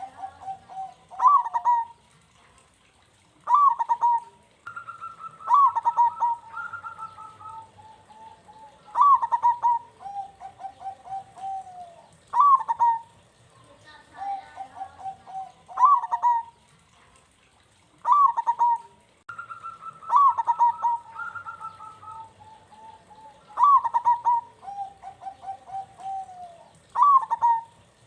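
Zebra dove (perkutut) cooing: a phrase repeated about every three and a half seconds, each a sharp opening note followed by a quick run of pulsed, quavering coos. The song is a 'bait' recording of a male in full song, meant to set other doves cooing.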